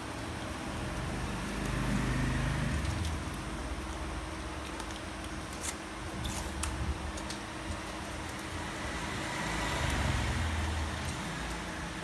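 Vehicles passing, two swells of traffic noise that rise and fall, about two seconds in and again near the end. A few light clicks of a hand tool working a rubber patch on the tire fall in between, over a steady background hum.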